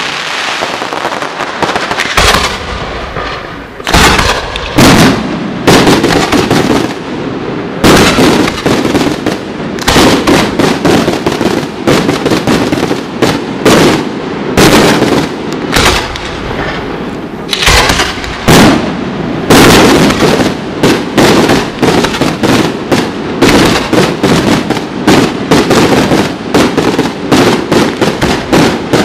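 Aerial firework shells bursting in quick, irregular succession at a professional display: sharp bangs about one or two a second over a continuous din, with a brief lull about three seconds in.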